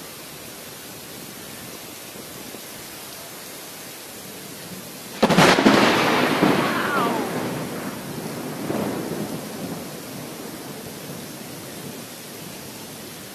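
Heavy rain falling steadily, then about five seconds in a sudden close thunderclap cracks and fades into a rumble over several seconds, swelling once more near nine seconds.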